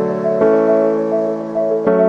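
Background music: soft, sustained keyboard chords that change about every second and a half, with a gentle repeating figure on top.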